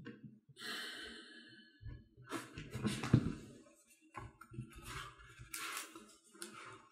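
Small objects handled on a tabletop: irregular rustling and scraping, with a sharp knock about three seconds in.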